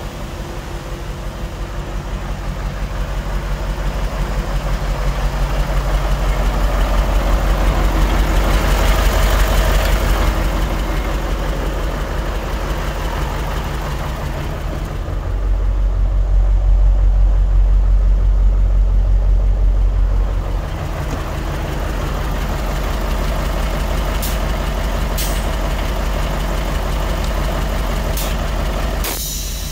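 Mercedes-Benz SK 2629 tipper truck's diesel engine idling with a steady low rumble. It grows louder for several seconds midway. A few sharp clicks come near the end.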